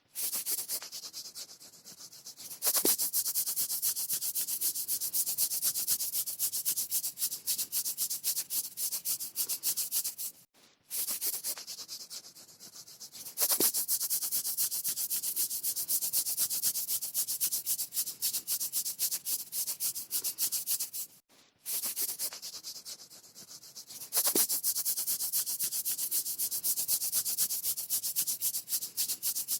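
Fingernails scratching skin in fast back-and-forth strokes, a dry rasping sound. It comes in three similar rounds, each starting softer and then turning louder, with brief breaks about a third and two thirds of the way through.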